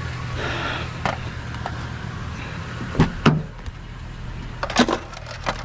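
Vehicle engine idling with a steady low hum, with a few sharp clicks and knocks about three seconds in and again near five seconds.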